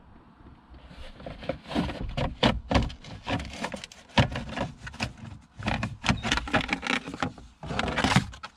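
Plastic steering column cover of a Toyota Vitz/Yaris being worked loose and pulled off by hand: a run of irregular plastic clicks, knocks and rattles, with the sharpest knocks about four seconds in and near the end.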